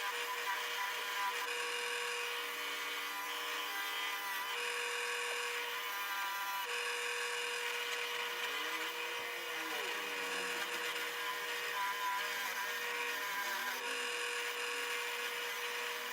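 Power-driven wire wheel running steadily and brushing loosened rust off an old steel hand tool, with a steady motor whine whose lower tones waver in pitch as the work is pressed against the wheel.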